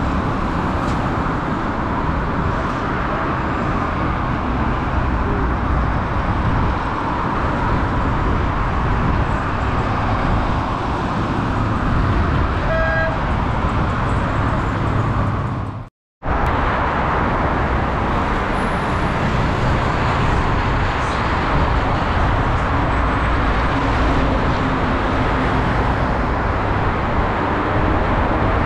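Steady road traffic noise from a busy highway, a continuous rumble of engines and tyres. A brief vehicle horn toot sounds a little before halfway, and the sound drops out for an instant a little past halfway.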